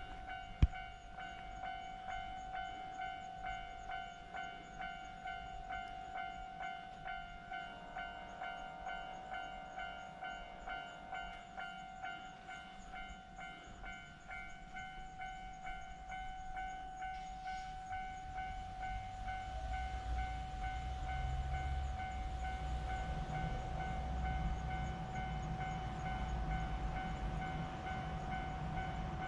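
Japanese railway level crossing's warning bell ringing in a steady rhythm of about two strokes a second. From about 18 seconds in, a train's low rumble builds as it passes.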